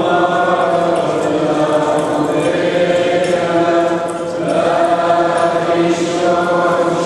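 Chaldean liturgical chant: voices singing slow, long-held notes. There is a short break about four seconds in before the next phrase begins.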